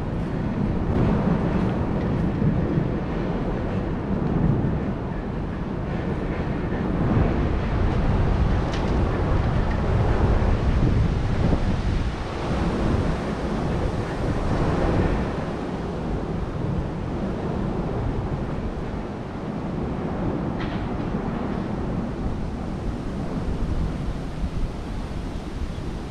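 Wind gusting against the microphone, swelling and easing every few seconds, over a steady rush of rain-soaked city background.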